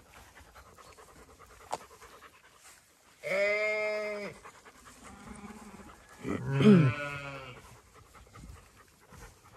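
Zwartbles sheep bleating: two bleats, one about three seconds in lasting about a second, and a louder one with a wavering pitch about six and a half seconds in.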